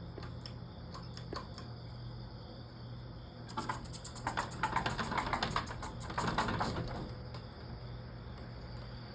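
Evergo Roma Emperor ceiling fan spinning down after being switched off, over a steady low hum; about three and a half seconds in, a rapid, even clicking at roughly ten a second swells for about three seconds and fades.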